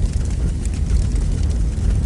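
Fire burning in a fireplace: a steady low roar with a few faint crackles.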